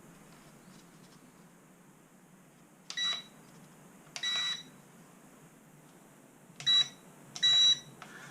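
Piezo beeper in a toy-grade 2.4 GHz RC plane transmitter giving four short high beeps, spaced about a second or more apart. These are the rate-change beeps as the switch is flipped between low and high elevator rates.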